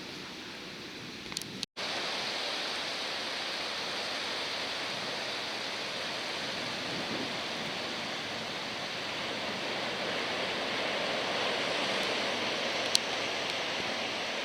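Steady rush of ocean surf washing on the shore, swelling a little near the end, with one sharp tick shortly before the end.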